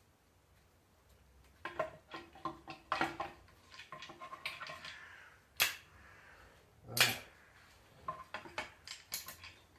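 Metal gearbox parts and hand tools clinking and knocking against each other as the gearbox is being put together, with two sharper knocks about a second and a half apart past the middle.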